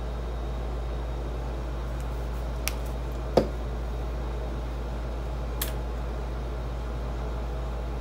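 Steady low hum of background room noise, with three brief light clicks over it; the loudest comes about three and a half seconds in.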